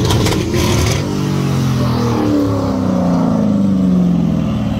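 Car engine running, its pitch sinking slowly over a few seconds. A few sharp knocks come in the first second.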